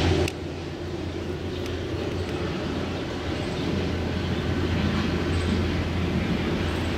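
Distant train rumbling on the line: a steady low drone with a wide hiss that slowly grows louder.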